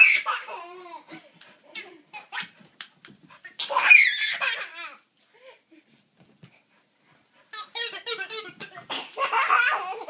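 A toddler belly-laughing hard in bursts: once at the start, again about four seconds in, and a longer run near the end.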